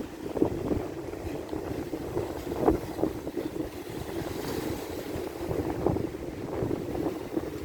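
Ocean waves washing on the shore, with wind buffeting the microphone in irregular low thumps, the strongest about half a second in and again near the three-second mark.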